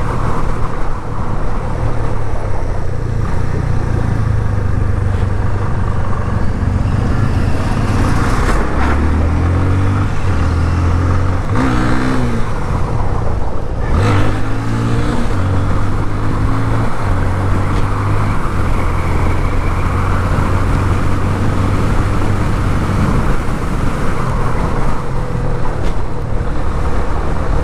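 Onboard sound of a Yamaha FZ25 single-cylinder motorcycle riding along a road: a steady engine hum that shifts pitch a few times, with wind noise on the microphone. Around the middle, trucks pass close by with a brief rush of sound.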